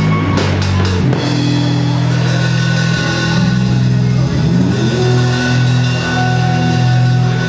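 Live rock band playing: sustained low guitar notes, one of them sliding upward about halfway through, with drum and cymbal hits in the first second.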